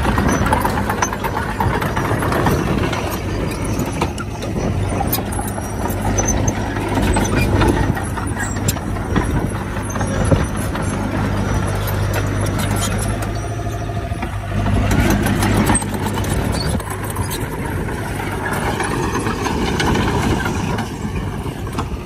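Bulldozer's diesel engine running steadily under load, with irregular clanking and knocking from its crawler tracks and the soil and stones it pushes.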